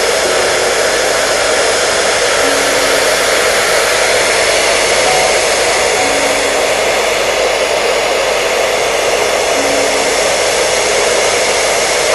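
Hair dryer running steadily with an even, unbroken noise, used as white noise to soothe babies.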